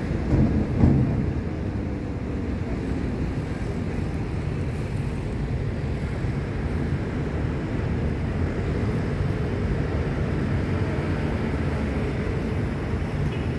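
Wind buffeting the microphone: a steady low rumble, with a brief louder gust about a second in.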